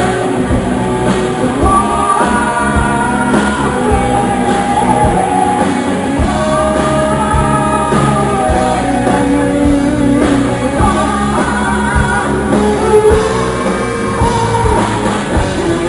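Live metal band playing: a lead singer's voice over electric guitars and drums, amplified in a concert hall.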